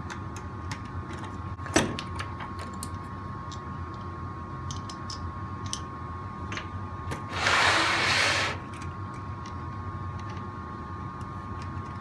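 Screwdriver and hands working a rear road wheel off a Kyosho Blizzard RC tracked chassis: scattered small clicks and ticks of metal on plastic, with a sharper click about two seconds in. Past the middle comes a rough scraping rush lasting about a second, the loudest sound here, over a steady faint hum.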